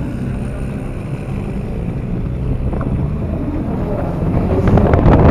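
Cadillac engine and road noise heard inside the car's cabin while driving, a steady low rumble that grows louder near the end.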